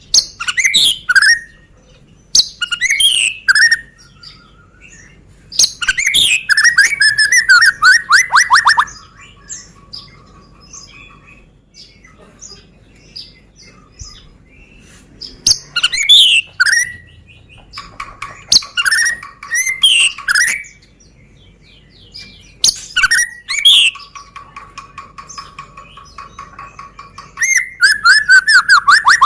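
White-rumped shama (murai batu, Medan type) singing loud, varied song phrases with rapid trills and rattling runs of notes, broken by pauses of a few seconds between phrases.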